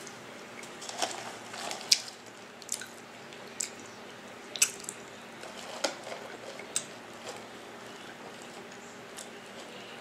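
A person eating a seafood boil close to the microphone: a string of sharp, wet clicks and smacks about a second apart, over a steady low hiss.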